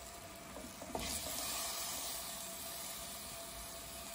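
A little water going into a hot clay pot of ghee, jaggery syrup and ripe mangoes sets off a hissing sizzle about a second in, which slowly eases off as a wooden spoon stirs.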